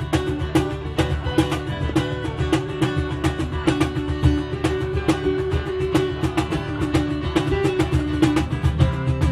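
Live reggae band playing: a steady bass line and guitar over an even beat of percussive strikes.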